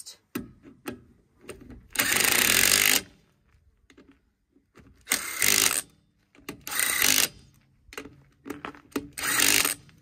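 Cordless impact wrench hammering in four short bursts, driving wheel nuts onto a ute's wheel studs. The first burst, about two seconds in, is the longest at about a second; faint clicks fall between bursts as the socket moves from nut to nut.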